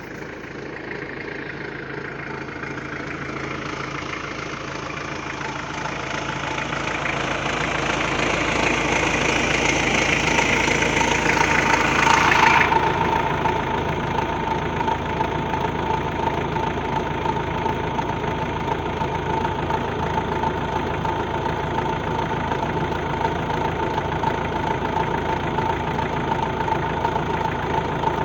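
Mitsubishi 4D56 diesel idling with a growling noise from its alternator and the vacuum pump built onto it. The noise grows louder as the engine warms. The owner, listening with a stethoscope, finds the vacuum pump the noisiest part, even though the alternator bearings are new. About halfway through, the hiss drops away suddenly and a steady whine carries on.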